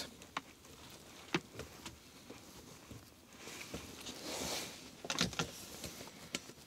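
Quiet handling sounds from a Cannondale Headshok telescope unit being jiggled by hand to work its shaft over the needle bearings: a few light clicks and knocks, with a cluster of them about five seconds in. A soft rustle comes between them, about three and a half seconds in.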